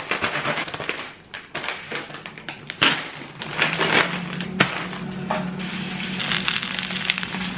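Plastic bag of frozen gyoza crinkling and rustling as it is cut open with a large kitchen knife and handled: a dense run of crackles and rustles. A steady low hum comes in about halfway through.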